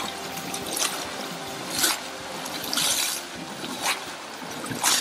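Oars dipping and splashing in a river as a raft is rowed, about one stroke a second.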